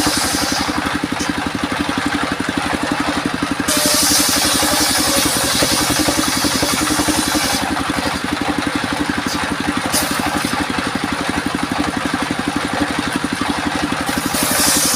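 The engine driving a homemade circular sawmill runs steadily with a fast pulsing beat. A high hissing noise joins it at the start, again from about four to seven and a half seconds in, and near the end, as the blade cuts through albasia (sengon) wood.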